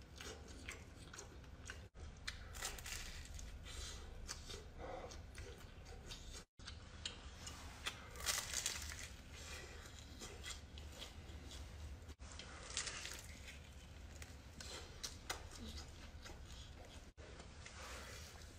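A person eating roasted meat off the bone: faint biting, tearing and wet chewing sounds, with a couple of breathy blows through pursed lips. The sound drops out briefly four times.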